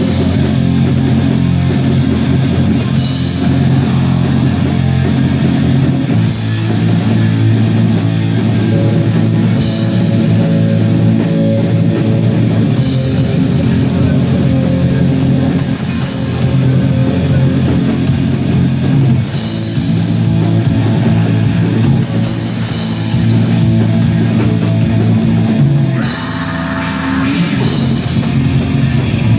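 A black metal band playing live and loud: distorted electric guitars over bass and a drum kit, the riff changing near the end.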